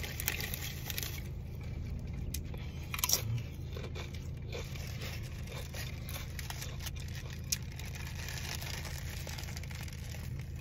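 A person eating a sub sandwich: bites and chewing, with the paper wrapper crinkling and a louder crunch about three seconds in, over a steady low hum.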